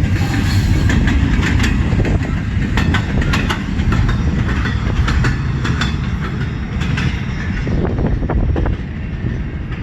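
CN freight train cars rolling past: a steady low rumble with frequent sharp wheel clicks, dropping slightly in level near the end.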